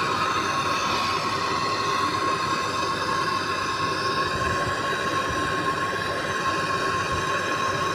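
Gas brazing torch flame burning steadily on copper AC pipe: a constant hissing roar with a steady whistling tone through it.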